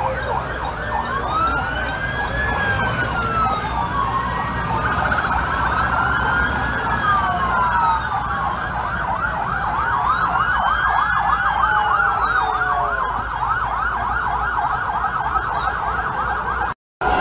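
Several emergency-vehicle sirens sounding at once: slow rising-and-falling wails overlapping, joined about five seconds in by a fast yelp, over a steady low rumble. The sound cuts out abruptly near the end.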